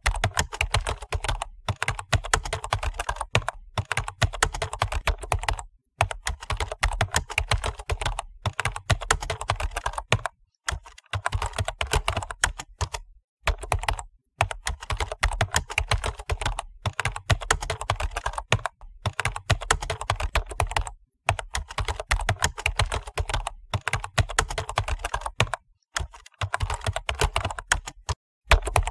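Computer keyboard typing sound effect: rapid key clicks in runs of a few seconds, broken by short pauses.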